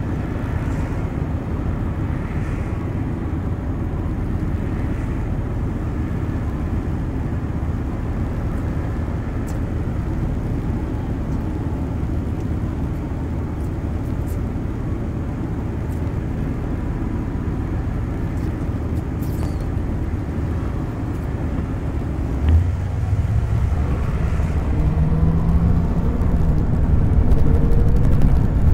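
Police patrol car's engine and road noise: a steady low rumble. About 22 seconds in there is a knock, then an engine note comes in and the sound grows louder toward the end.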